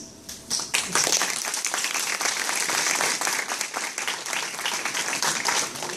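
Audience applauding, a dense patter of many hands clapping that starts about half a second in and stays steady.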